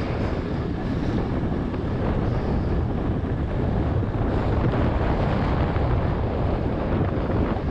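Steady wind rush buffeting the microphone of a bicycle being ridden fast in a gravel race.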